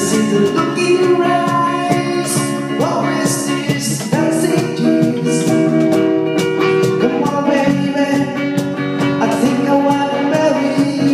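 Live band playing a rock-style song: sustained guitar and vocal notes over steady drum hits.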